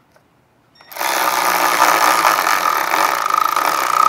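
Milwaukee M12 cordless 3/8-inch ratchet running under heavy load, its motor and gearing whining steadily from about a second in, as it drives a large screw into wood. It is straining against the tight screw.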